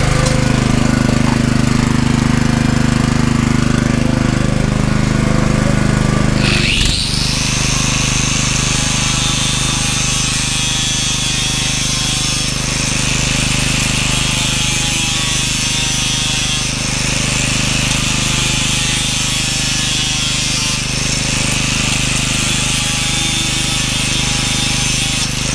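An angle grinder comes up to speed about six and a half seconds in with a rising whine, then runs at a steady high whine as its disc cuts lengthwise along a black plastic pipe. A steady low hum runs underneath throughout.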